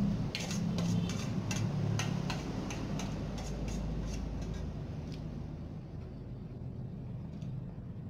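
A quick run of light ticks, about three a second, that stops about five seconds in, over a low rumble that slowly fades.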